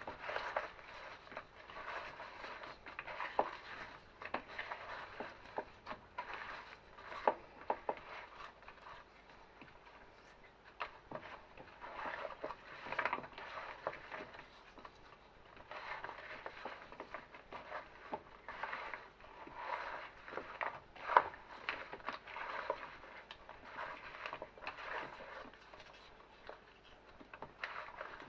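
Thin, oil-coated potato slices being tossed by hand in a bowl: a continuous, irregular soft scraping and slapping of slices against each other and the bowl, with frequent short clicks.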